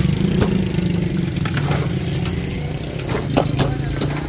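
Hand ice pick stabbing and chipping a block of ice over a steel bowl: a handful of sharp, irregular strikes. A steady low engine hum runs underneath.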